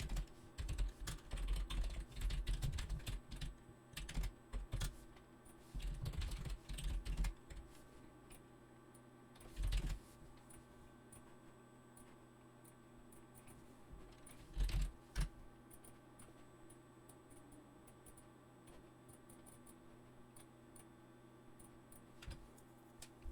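Computer keyboard typing in irregular bursts of keystrokes: steady clusters over the first several seconds, then short bursts around ten and fifteen seconds in, and long quiet gaps in between.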